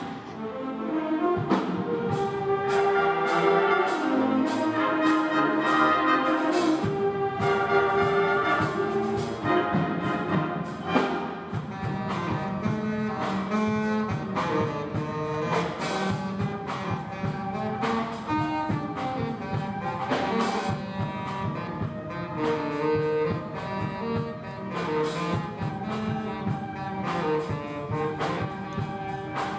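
A middle-school concert band playing live, brass and woodwinds holding sustained melodic lines and chords over a steady beat of percussion strikes.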